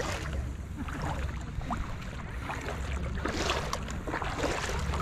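Shallow sea water splashing and sloshing in irregular surges over a steady low rumble.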